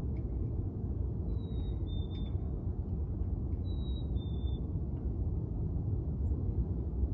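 A small bird whistling a clear two-note call, the second note slightly lower than the first, three times about two seconds apart, over a steady low outdoor rumble.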